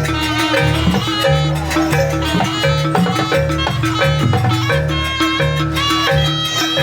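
Live Banyuwangi jaranan ensemble music: drums and gongs with ringing metal-keyed percussion playing a fast, repeating rhythmic pattern.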